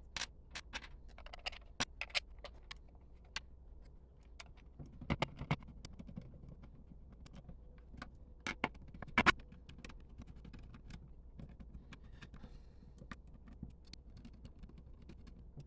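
Irregular small clicks and taps of hands working small screws into a 3D-printed plastic mounting plate, with a few louder knocks about five seconds and about nine seconds in.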